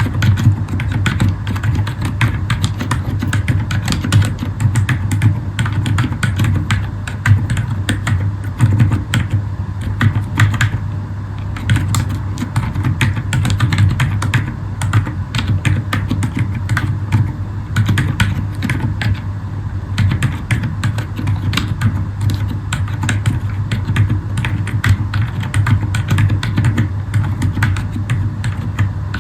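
Continuous typing on a Zifriend ZA63 mechanical keyboard with Akko Fairy silent switches: a fast, steady stream of soft key presses and returns, over a steady low hum.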